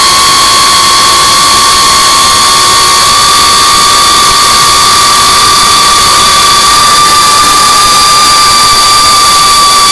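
Brushless motors and propellers of a 5-inch FPV drone whining at a steady high pitch over a loud hiss, heard from the drone's onboard camera.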